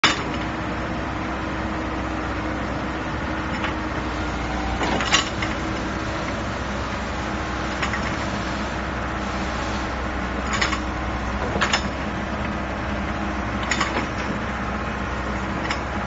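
Excavator engine running steadily while the hydraulic tilt quick coupler swings the bucket, with a few sharp metallic clicks and knocks from the moving attachment.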